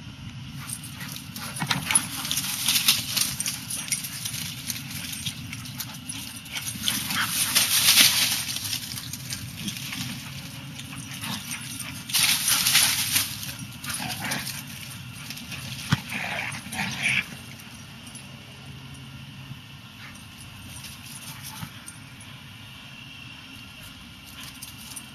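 Two dogs playing, heard as several short, noisy bursts of dog sounds. The longest and loudest come in the first third, and it goes quieter for the last third.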